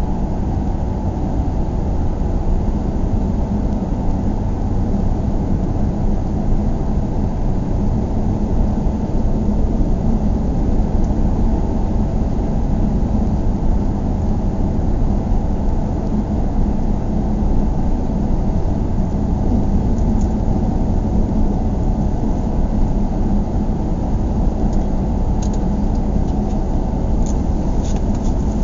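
Steady low vehicle rumble, like a motor vehicle running on the road, with a steady hum under it; a few faint ticks near the end.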